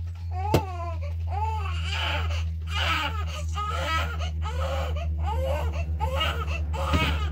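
Infant crying in a rapid string of short, wavering cries, a baby fretting with hunger. A steady low hum runs underneath, and there is one sharp click about half a second in.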